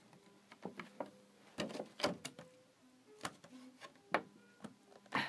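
Hard clear plastic packaging tray being handled: a scattering of light clicks and taps of plastic, some sharper than others.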